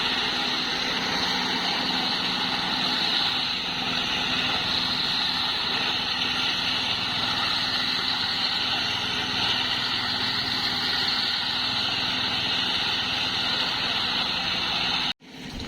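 An engine running steadily at a road construction site, with a loud even mechanical noise that cuts off abruptly near the end.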